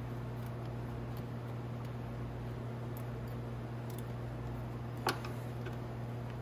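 Faint clicks and taps of hand work fitting a hose clamp on a motorcycle carburetor, over a steady low hum, with one sharper click about five seconds in.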